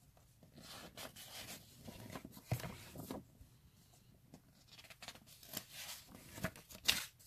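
Pages of an old comic book being turned and handled: paper rustling in a run of short bursts, with sharper crinkles about two and a half seconds in and again near the end.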